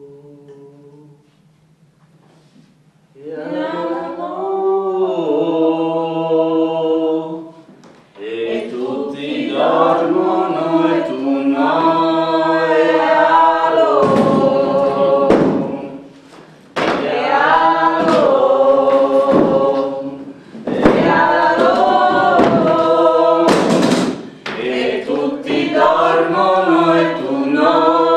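A choir singing without accompaniment: several voices hold long notes together over a low sustained tone. The singing starts about three seconds in and goes in phrases broken by short pauses.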